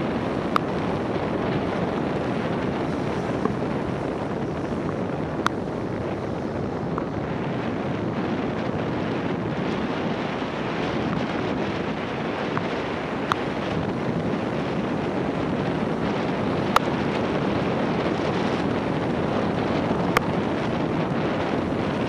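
Steady rush of wind over a car-mounted 360 camera's microphone mixed with tyre noise on wet road as the car drives in the rain, with a handful of sharp single ticks scattered through it, raindrops striking the camera.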